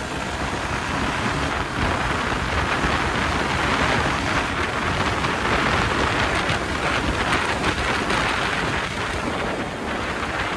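Steady wind rush on the microphone of a Yamaha R15 V3 motorcycle at speed, as it accelerates to about 90 km/h, with low road rumble beneath. The rush grows louder about two seconds in and eases slightly near the end as the bike slows.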